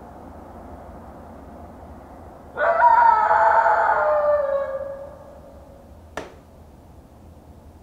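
A single long, drawn-out animal howl that slides slowly down in pitch and fades out, over a steady background hiss; a sharp click follows near the end.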